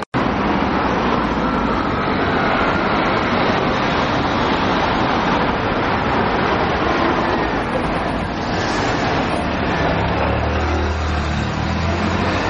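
Steady city street traffic from cars and vans passing close by. A low engine hum from a nearby vehicle joins near the end.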